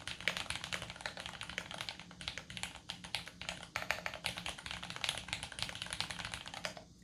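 Fast, continuous typing on an Archon DX2 mechanical keyboard with lubed Cherry Vintage Brown tactile switches in an aluminium plate, under GMK Honeywell keycaps. The keystrokes come in quick irregular runs and stop just before the end.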